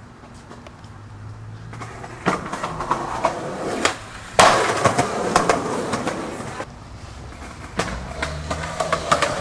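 Skateboard wheels rolling on concrete and getting louder, a brief gap, then a loud clap of the board landing a jump down a six-stair about four and a half seconds in, followed by the wheels rolling away. Wheels rolling and clattering again near the end.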